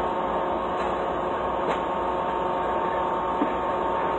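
Steady machine hum with several steady tones, unchanging throughout, with two light knocks, the sharper one near the end.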